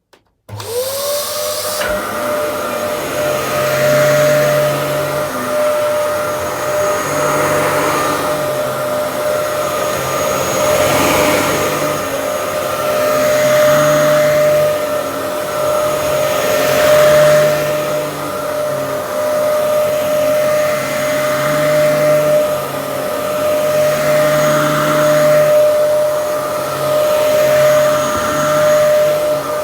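Dyson DC07 upright vacuum cleaner switched on. Its motor whine climbs to a steady pitch within the first second, then runs steadily, swelling and easing every few seconds.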